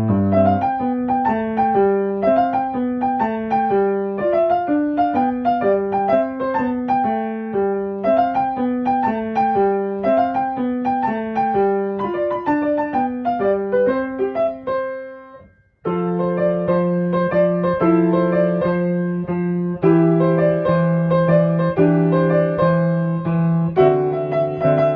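Background piano music: a run of quick single notes fades out about fifteen seconds in, and a new passage of held chords starts a second later.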